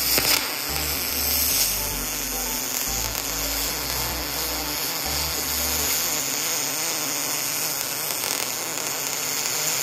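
MIG spool gun welding aluminium plate: the arc gives a steady crackling hiss.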